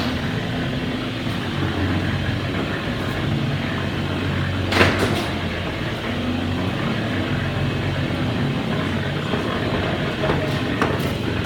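Beetleweight combat robots' electric motors humming in stretches that start and stop, with one sharp clash about five seconds in.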